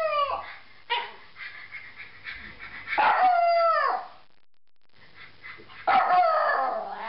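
Bichon frise barking and howling with its head raised: a short bark about a second in, then two long drawn-out yowls of about a second each, around three and six seconds in, each sliding down in pitch at the end.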